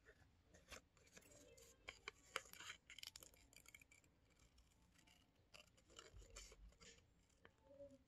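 Plastic-handled scissors snipping through a small piece of white paper: a run of faint, irregular snips and clicks, thickest about two to three seconds in.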